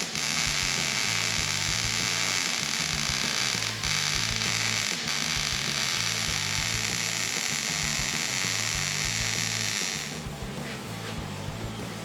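A power tool runs with a steady high-pitched whine and hiss, briefly dipping twice, then stops about ten seconds in. Background music with a rhythmic bass line plays underneath.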